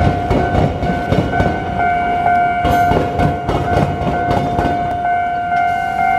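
Train wheels clattering over a railway diamond crossing where the suburban line crosses the tram tracks at grade: a run of irregular sharp clacks, thickest in the middle. A level-crossing warning bell rings steadily throughout.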